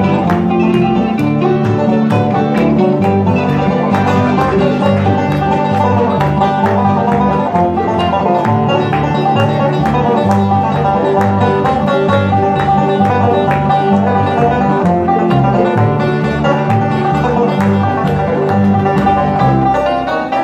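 Small acoustic string band playing an instrumental tune: mandolin and other plucked strings over an upright bass line stepping from note to note.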